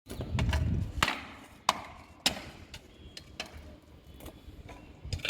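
A series of sharp knocks at irregular intervals, the first three the loudest, over a low rumble in the first second.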